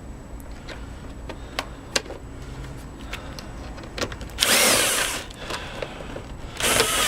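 Cordless power drill/driver run in two short spurts of about a second each, driving in the screws of an engine cover plate, after a few light clicks of parts being handled.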